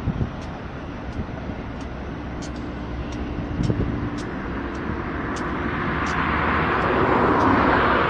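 Low, steady rumble of a slow-moving freight train's diesel locomotives, with a rush of noise swelling over the last few seconds. A faint tick repeats about every two-thirds of a second.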